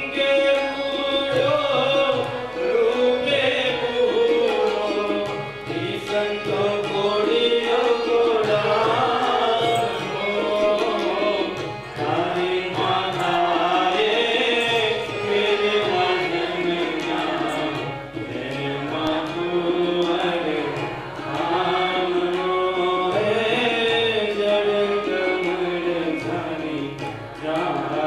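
Indian devotional bhajan: a man singing a wavering melody to harmonium and hand-drum accompaniment at a steady rhythm.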